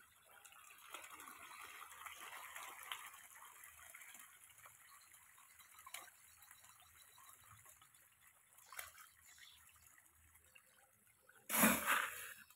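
A crowd of patin (pangasius catfish) thrashing at a pond's surface, a continuous splashing and churning of water that is strongest in the first few seconds and then eases off. A brief louder burst comes near the end.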